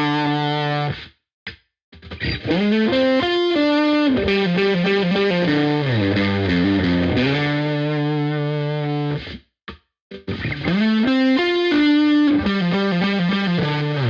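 Epiphone Les Paul Black Beauty electric guitar played through a distorted, overdriven amp tone: a riff of held and changing notes that stops dead twice for about a second before starting again.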